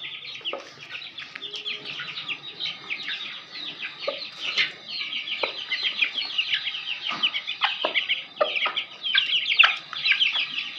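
Aseel chickens clucking now and then over a dense, constant chatter of short, high chirps.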